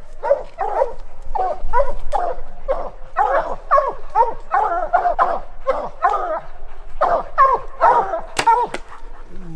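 Several hunting hounds barking without a break, about three barks a second, the dogs baying at a bayed or treed black bear. A single sharp click sounds about eight and a half seconds in.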